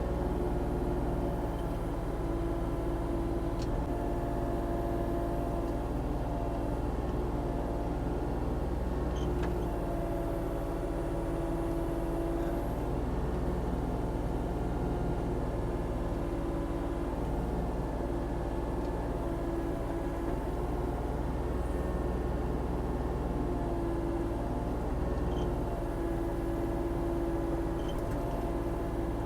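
Volvo ECR40D compact excavator's diesel engine running steadily while it digs, with a higher tone that swells and drops away every few seconds as the machine works.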